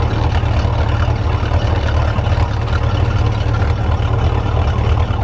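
MerCruiser boat engine idling steadily with a low, even rumble, running to warm up so the thermostat opens and the cooling system is flushed through.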